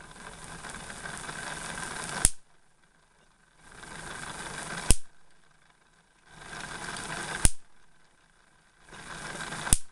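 Homemade Wimshurst machine throwing sparks across its ball electrodes: four sharp snaps, one about every two and a half seconds. Before each snap a hiss swells up, and it cuts off at the snap. Each spark marks the jar capacitors charging up until the gap breaks down.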